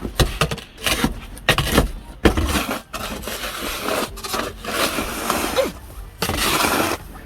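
Snow shovel scraping and pushing snow across a wooden deck in uneven strokes, with sharp knocks as the blade hits the boards.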